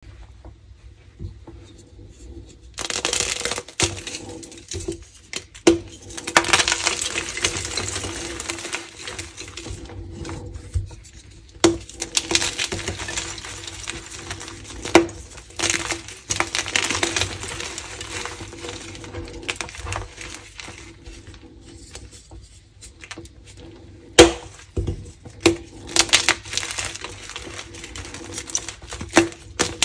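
Hands crushing and crumbling blocks of gym chalk coated in coloured pigment powder: gritty crunching with several sharp snaps as pieces break off, starting about three seconds in.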